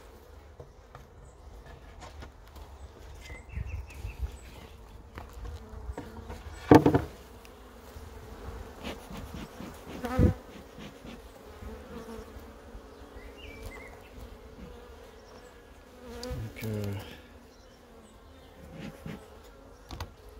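Honeybees buzzing steadily around an open hive, their hum filling the air above the exposed frames. A few louder short sounds stand out, about seven and ten seconds in and again near sixteen seconds.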